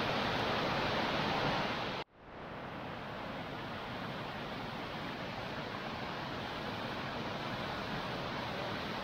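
Steady rush of water pouring over a waterfall's limestone cascades. About two seconds in it cuts off abruptly, then returns a little quieter.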